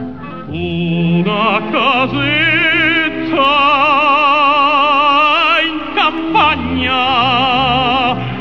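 Music: a singer in an operatic style holds long notes with a wide vibrato over an instrumental accompaniment. The longest and highest note is held through the middle, then a short falling phrase leads into another held note.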